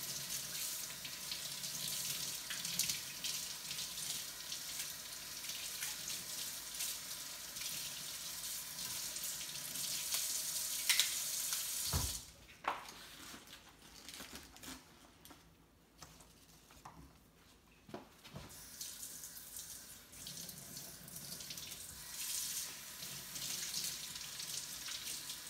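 Kitchen faucet running into a sink as muddy beet greens are rinsed. About halfway through the water stops with a knock. A few faint clicks follow, and the water runs again for the last several seconds.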